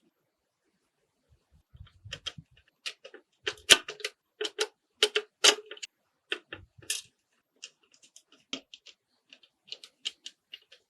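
Irregular small clicks and taps of hands working on small parts of a 1:24 scale model car, densest in the middle and thinning toward the end, with a few soft thuds.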